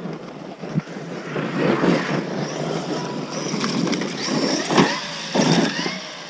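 Large 8S brushless electric RC monster trucks driven hard on dirt: a high motor whine rising and falling over tyre and gravel noise, with a few sharp thumps.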